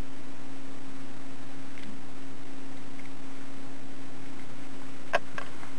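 Steady low electrical hum, one unchanging tone, with a faint click about five seconds in.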